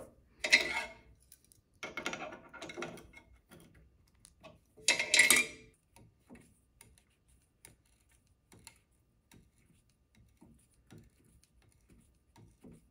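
Brass fitting being twisted by hand into a hole in a hardwood frame with the drill press chuck, scraping and creaking in three short bursts, about half a second, two seconds and five seconds in, with faint clicks between.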